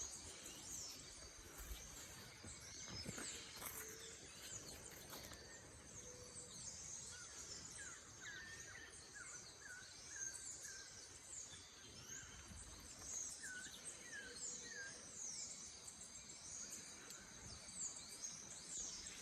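Faint chorus of birds chirping and calling, with many quick high chirps throughout and a run of short repeated whistled notes from one bird in the middle.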